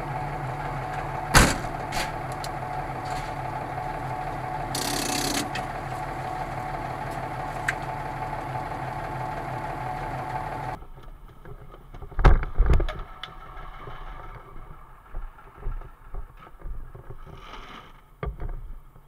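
Fire engine's engine idling with a steady hum, heard from inside the cab, with a sharp click about a second and a half in and a short hiss around five seconds. Then two heavy thumps followed by lighter knocks and clatter of gear being handled in an equipment compartment where traffic cones are stored.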